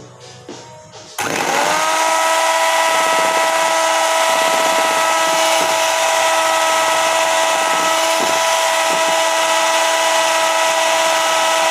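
Electric hand mixer switched on about a second in, its motor whining up in pitch to speed and then running steadily as its beaters whip eggs and powdered sugar into a thick foam.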